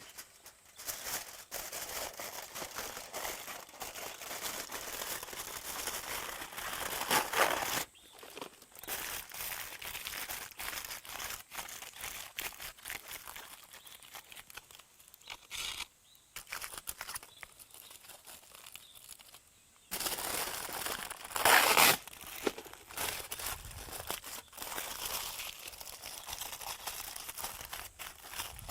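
Crinkling and rustling from food being handled, with many small clicks and crackles. The sound changes abruptly twice, and there are brief louder scrapes about seven seconds in and near twenty-two seconds.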